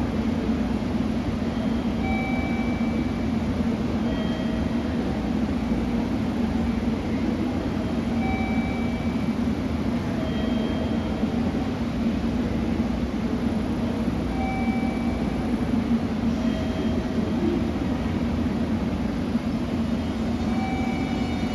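JR Kyushu 883 series electric train standing at the platform, its onboard equipment giving a steady hum, with faint short tones recurring about every six seconds.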